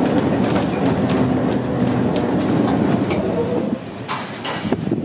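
Interior of a vintage four-wheel tramcar running along its track: a steady hum from the motor and wheels on the rails. It drops away suddenly about four seconds in to quieter outdoor sound.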